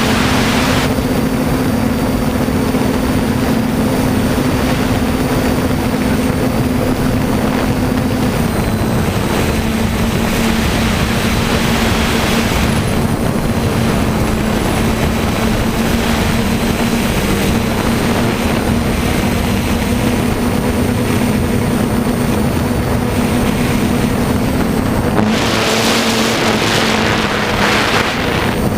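DJI F450 quadcopter's electric motors and propellers running with a steady hum and a faint high whine, the pitch dropping slightly about eight seconds in. Wind rushes over the camera microphone in gusts near the start, in the middle and near the end.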